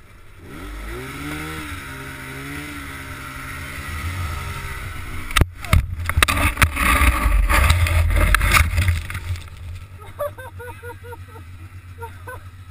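Polaris snowmobile engine revving, its pitch rising and then wavering, as the sled ploughs through deep powder. About five seconds in there is a sharp knock, then several seconds of loud rough thrashing and knocking as the sled rolls over in the snow. After that it goes quieter.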